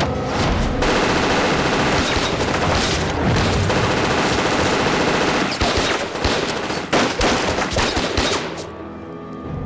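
Continuous automatic gunfire from submachine guns, breaking into separate sharp shots over the last few seconds and stopping nearly nine seconds in, after which a soft music bed comes through.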